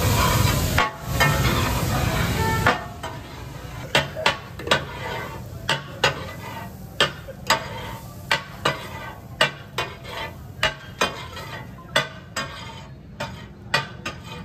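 Fish katakat frying on a large iron tawa: a loud sizzle for about the first three seconds, then a quieter sizzle under sharp, irregular clacks of metal spatulas chopping and scraping on the griddle, about one or two a second.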